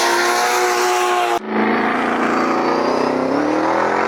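Car engine held at high revs on track, its note steady; about a second and a half in the sound cuts abruptly to another engine that holds and then revs up near the end.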